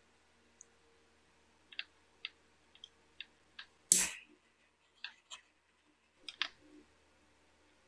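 Small clicks and taps from handling a rocker switch and soldering tools on a workbench, with one louder knock about four seconds in, over a faint steady hum.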